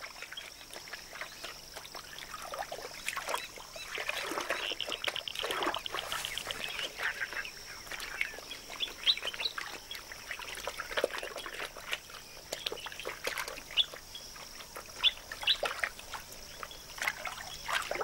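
Water trickling and splashing as an African spoonbill sweeps its bill side to side through shallow water beside a wading black heron. Scattered chirping bird calls come through, with a fast rattling call about five seconds in, over a faint steady high-pitched hum.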